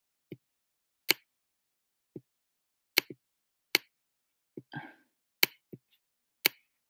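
Sharp, separate clicks, about ten of them at uneven intervals, made while numbers are handwritten onto an on-screen worksheet with a pen tool. There is dead silence between them.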